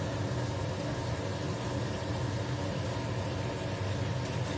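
Steady hum of a kitchen range-hood fan running over tofu frying in a pan, with light scrapes of a spatula in the pan.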